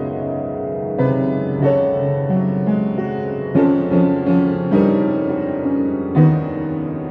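Piano music, slow and tender, with new chords or notes struck about once a second.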